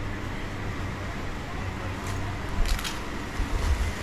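Indoor market ambience: indistinct background chatter over a steady low rumble, with a short rustling noise about two and a half seconds in.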